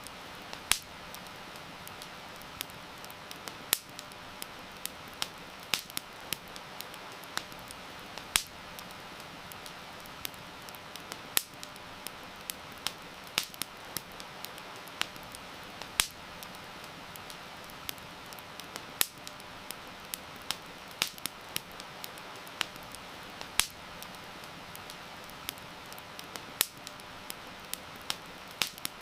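Wood fire crackling, with irregular sharp pops and snaps several times a second over a steady hiss of rain.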